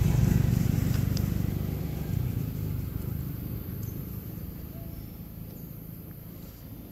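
Low engine rumble of a passing road vehicle, fading steadily as it moves away, with a few faint clicks.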